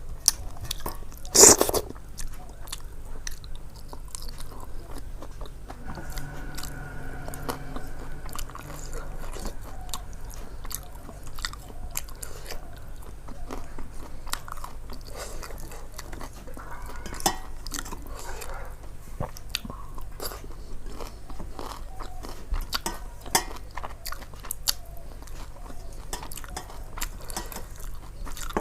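A person chewing and biting food close to the microphone: a steady run of small wet mouth clicks and light crunches, with one louder crunch or knock about a second and a half in.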